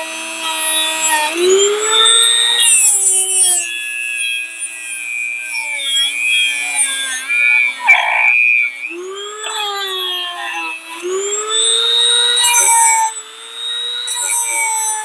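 Electric power tool motor whining steadily, speeding up and slowing down several times as the tool is worked.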